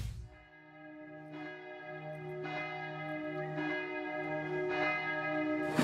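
Church bells ringing, with a new strike about once a second, each ringing on into the next, and the sound slowly swelling. It opens on the fading tail of a deep boom.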